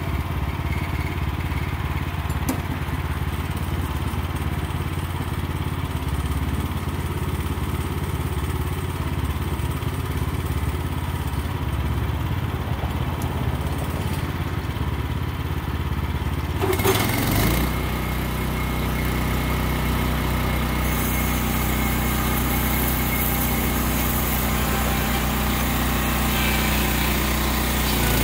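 Wood-Mizer LX25 band sawmill's gasoline engine idling, then revving up sharply about two-thirds of the way through and running steadily at speed, which brings the band blade up to speed ahead of the cut; a high hiss joins in soon after.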